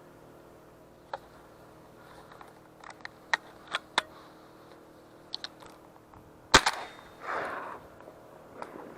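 A scattered series of sharp clicks and knocks, the loudest a sharp crack about six and a half seconds in, followed by a brief rushing noise.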